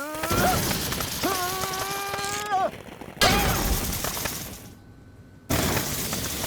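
Cartoon crash and shattering sound effects, with a character's long cry partway through. A sudden loud burst comes about three seconds in and another near the end.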